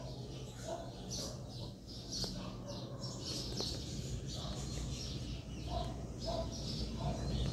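Birds chirping, many short high calls overlapping, with a lower call repeated about twice a second near the end.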